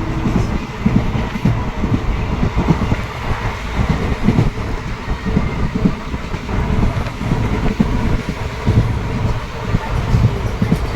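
Train running on the rails: a steady low rumble with irregular knocks and rattles of the wheels over the track.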